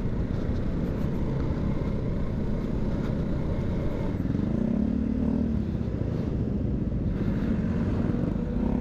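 Honda TMX 125 single-cylinder four-stroke motorcycle running under way, its engine hum buried in a steady low rumble of wind on the helmet microphone.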